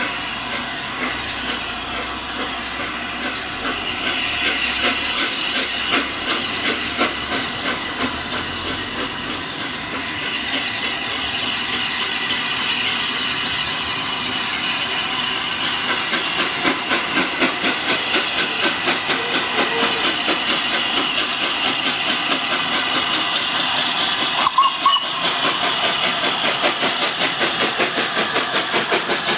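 LNER A3 Pacific steam locomotive Flying Scotsman, a three-cylinder engine, blowing off steam with a steady hiss, then pulling a train away. Its exhaust beats come in evenly and get quicker as it gathers speed. A brief sharp sound comes about 25 seconds in.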